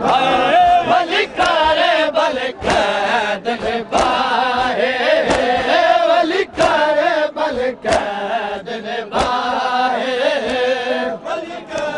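A crowd of men chanting a mourning lament together. Sharp slaps of hands on bare chests (matam) mark the beat about once a second.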